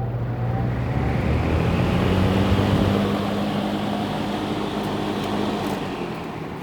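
1971 JCPenney Pencrest 50 box fan (a rebadged Lakewood S-21 with metal blades) running on its high speed. Its motor hums under a rush of moving air that builds over the first two or three seconds as the blades come up to speed, then holds steady.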